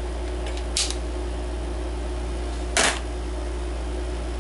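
Handling noise from a yellow digital multimeter being moved and set down: a faint short rustle just under a second in, then a louder brief clack near three seconds, over a steady low background hum.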